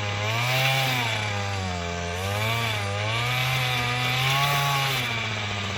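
Small two-stroke engine of an Earthquake MC33 33cc mini tiller running hard while it tills soil, its pitch dipping and recovering every second or so as the tines dig in and load the engine.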